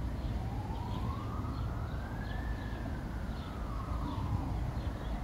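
Emergency vehicle siren wailing slowly: one long rise over about two seconds, then a fall over nearly three, over a steady low rumble.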